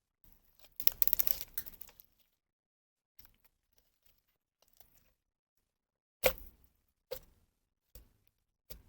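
Slime being worked by hand: a crackling, squishing burst about a second in, then four short sharp plops less than a second apart near the end as it is pressed and released.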